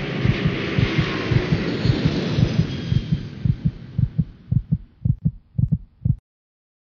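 Low rhythmic thumps, paired like a heartbeat, under a hissing wash. Both fade, the thumps thinning out and slowing until they stop about six seconds in.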